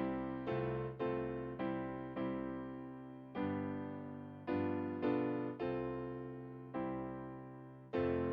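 Slow solo piano music: chords struck one after another, each left to ring and fade before the next.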